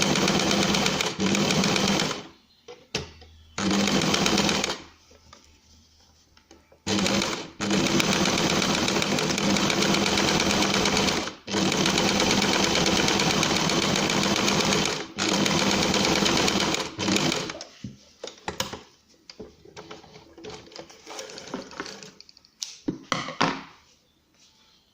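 Sewing machine stitching a buttonhole with a buttonhole presser foot, running in several spells of a few seconds each with short stops between them. Over the last several seconds it falls silent, leaving scattered clicks and knocks.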